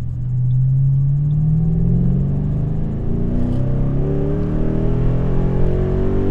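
Ford Mustang engine accelerating, heard from inside the cabin: its note climbs in pitch, falls back once as it shifts up a gear about two and a half seconds in, then climbs again.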